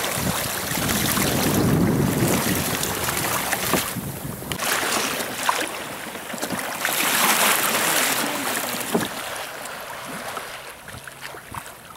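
Wind buffeting the microphone and choppy waves splashing against a pedal kayak's hull. The noise swells twice and eases off near the end.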